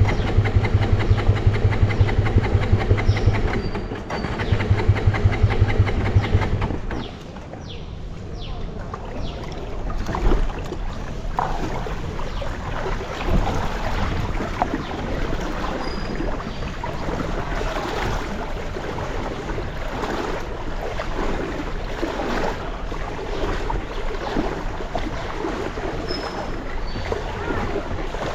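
An engine running with an even, rhythmic beat for about seven seconds, pausing briefly near four seconds, then stopping. After that, flood water sloshing and splashing, with wind on the microphone.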